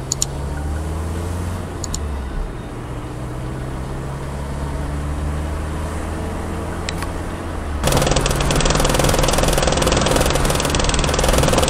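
Car engine and road noise heard from inside the cabin. The engine pitch rises slowly as the car gathers speed, with a few sharp clicks. About eight seconds in, the sound switches suddenly to louder, hissing road and wind noise.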